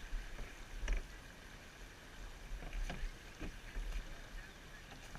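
Sounds aboard a canoe on the water: a few light knocks and taps against the boat, the sharpest about a second in and more around three to four seconds in, over a low rumble on the microphone.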